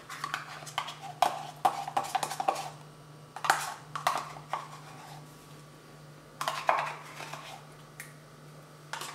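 Metal spoon scraping plain yogurt out of its pot and knocking against it, in three short bouts of scrapes and clicks.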